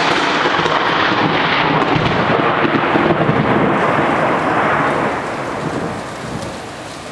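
A long, loud roll of thunder that fades over the last couple of seconds, with rain.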